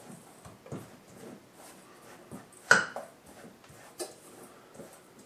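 Spatula stirring a crumbly almond-meal and butter crust mixture in a stainless steel bowl: soft scraping with a few light knocks of the spatula against the bowl, the clearest just under three seconds in and another at four seconds.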